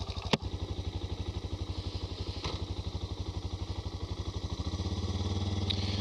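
Suzuki DR650's single-cylinder four-stroke engine idling with an even, pulsing beat, with a sharp click just after the start. Near the end the engine picks up revs and runs on steadily.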